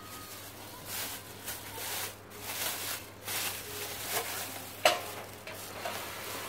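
Clear plastic wrapping crinkling and rustling in repeated short bursts as it is pulled off a stainless steel steam pot, with a single sharp metal clink a little before the end.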